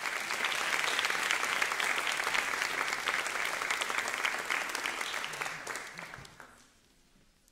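Audience applauding, a dense patter of clapping that dies away about six and a half seconds in.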